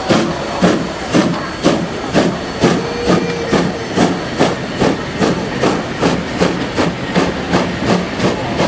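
Hr1 'Ukko-Pekka' steam locomotive chuffing as it pulls its train away, with steam hissing. The exhaust beats quicken from about two to about three a second as it gathers speed.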